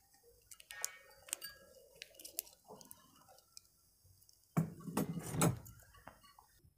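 Faint clicks and small rustles of enamelled copper winding wire being pressed by hand into the slots of a small pump motor's stator, with a louder handling rustle lasting about a second near the five-second mark.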